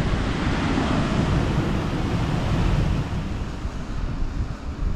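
Wind buffeting the microphone over the wash of a choppy sea on the rocks, easing a little in the second half.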